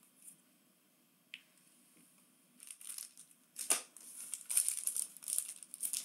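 Foil trading-card pack crinkling as it is picked up and handled, starting about two and a half seconds in and growing busier toward the end, with one sharp click partway through.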